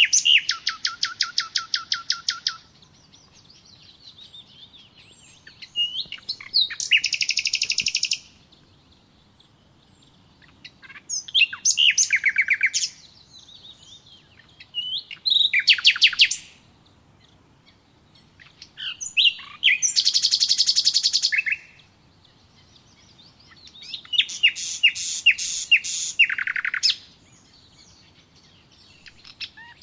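A songbird singing loud trilled phrases, each a fast run of repeated notes lasting one and a half to three seconds, six times with short pauses, and faint chirps in between.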